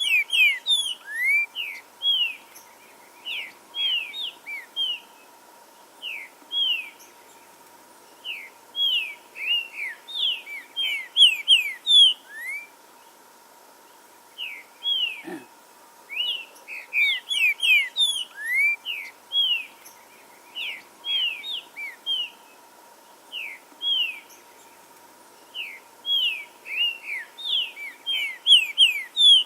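Green-winged saltator (trinca-ferro) singing: phrase after phrase of short, loud whistled slurs, with a few seconds' pause between some phrases.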